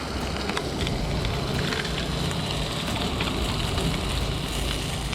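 Trout pieces frying in oil on a portable stove: a steady sizzle with scattered small pops and crackles.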